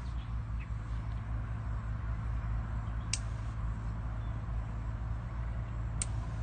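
Outdoor ambience with a steady low rumble. A short, high-pitched bird chirp comes about three seconds in and again near the end.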